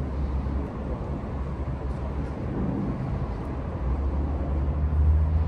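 Low, steady rumble of a motor vehicle's engine running close by, growing louder near the end.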